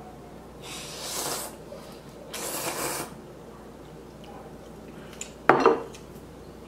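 A man slurping instant ramen noodles from a bowl, two hissing sucks each about a second long. Then a ceramic bowl is set down on the table with a loud clunk about five and a half seconds in.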